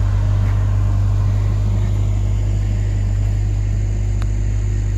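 Stump grinder's engine running steadily, a constant low rumble.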